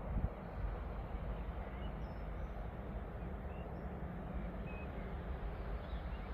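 Quiet trackside ambience: a steady low rumble with a few short, faint bird chirps.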